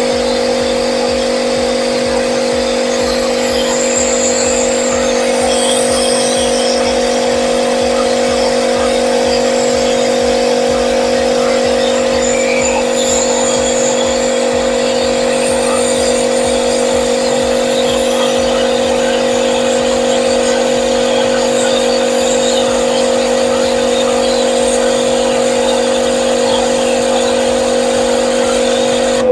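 Benz BZ-8548 electric pressure washer running steadily at its factory setting with the stock spray gun spraying: a constant motor hum-whine over the hiss of the water jet. It is about 73 to 74 decibels, and it stops abruptly at the end once a minute of flow has been run.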